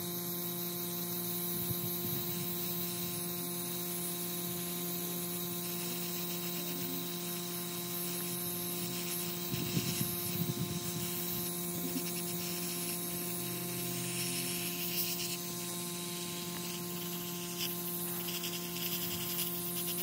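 Paint spray gun spraying: a steady hum with a hiss over it, and a few brief knocks about halfway through.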